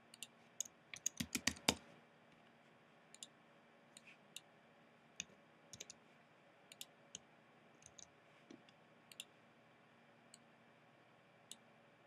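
Computer keyboard keys and mouse buttons clicking: a quick run of clicks in the first two seconds, then single clicks spread out every second or so.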